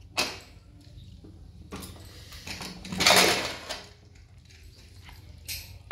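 Pigeon stainless steel pressure cooker being opened: a short click, then metal sliding and scraping against the rim about three seconds in as the lid comes off.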